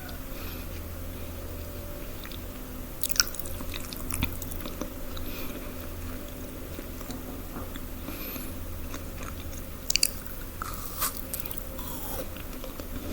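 A person biting and chewing crunchy food close to the microphone. There are a few crisp bites, the loudest about three seconds in and near ten seconds, with quieter chewing between, over a steady low hum.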